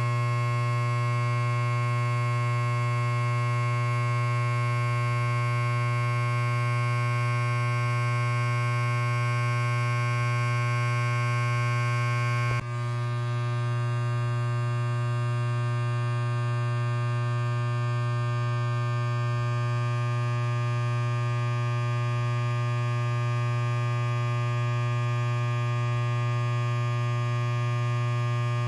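Electric hair clipper running unloaded: a steady low buzz with many overtones. About halfway through there is a brief dip, after which the upper part of the buzz is a little softer.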